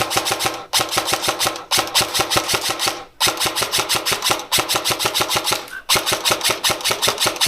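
Airsoft gun firing on full auto: rapid, evenly spaced shots in long bursts, about five strings broken by brief pauses.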